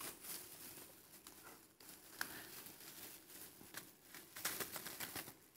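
Thin plastic bag crinkling and crushed ice shifting inside it as hands dig through for a card: a faint run of small rustles and clicks, a little louder near the end.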